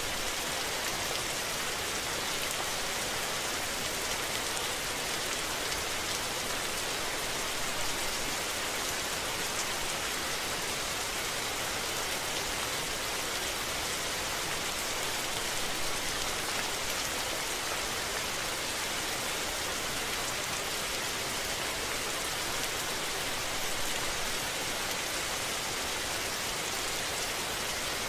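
Steady rain falling, an even hiss with no thunder or other distinct sounds.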